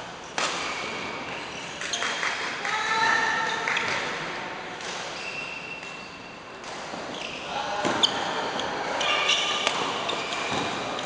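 Badminton rally in an indoor hall: sharp cracks of rackets striking the shuttlecock, a second or so apart, with voices around the hall.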